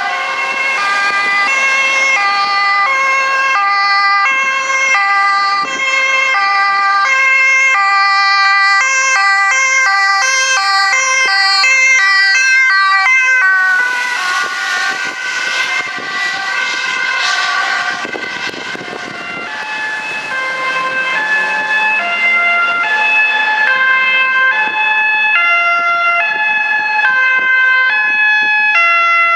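Dutch ambulance two-tone sirens alternating steadily between a high and a low note, with two sirens briefly sounding out of step. About halfway through, a rush of road and engine noise swells as a vehicle passes close, then the alternating siren notes carry on.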